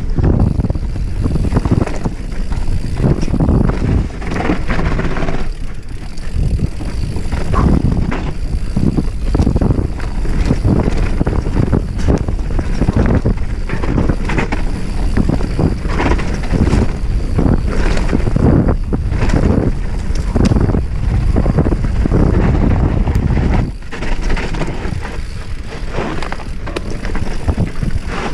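Wind rushing over the microphone with the constant rattle and knocks of a mountain bike riding down a rough trail.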